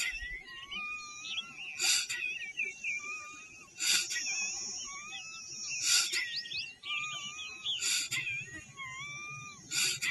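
Short, sharp exhales forced out through the nose in kapalabhati breathing, one about every two seconds, each pushed by a contraction of the abdomen. Birds call with wavering whistles in the background.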